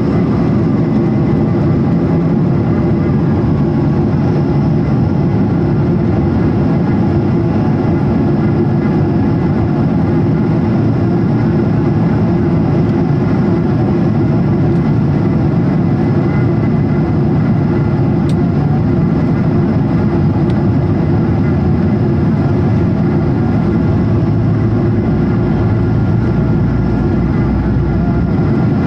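Steady cabin noise inside an Airbus A220-300 moving on the ground: its Pratt & Whitney PW1500G engines hum evenly over a deep rumble, with a few faint steady whines above.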